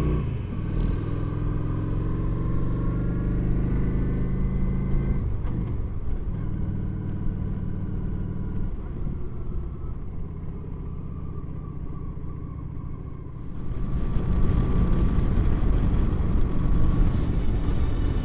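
Motorcycle engine running at a steady road speed, with road and wind noise; it grows louder about three-quarters of the way through.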